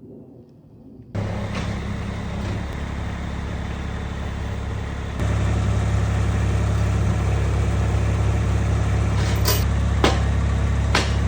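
A vehicle engine running steadily at idle, starting abruptly about a second in and getting louder about five seconds in, with a few light clicks near the end.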